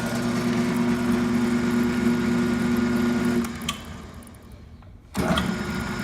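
Rong Yu RY-30 mill-drill's 2 hp electric motor and spindle running with a steady hum. It is switched off about three and a half seconds in and spins down, then starts up again suddenly about five seconds in, as the forward/reverse switch is worked.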